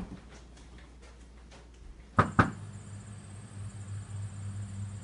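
Two sharp knocks in quick succession about two seconds in, followed by a steady low hum.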